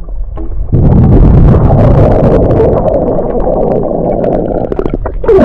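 Muffled rush and gurgle of water, with many small bubble clicks and pops, picked up by a submerged camera as a child swims past it. It sets in loudly under a second in.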